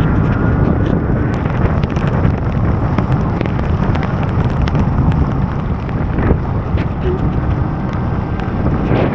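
Wind buffeting the microphone of a rider on an electric motorcycle moving through heavy rain: a steady loud rumble with scattered raindrop taps.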